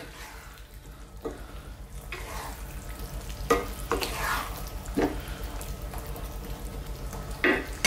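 Wooden spatula stirring a pan of simmering zucchini and tomato stew, with a handful of soft knocks and scrapes against the pan over a faint sizzle.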